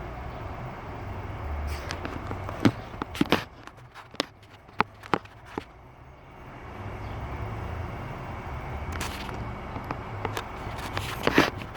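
Scattered sharp knocks and clicks, several in the middle and one near the end, over a low, uneven rumble.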